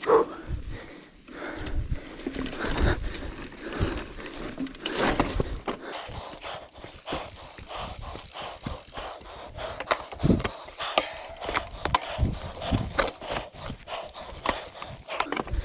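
Mountain bike rattling and knocking over rough cross-country trail, with the rider breathing hard.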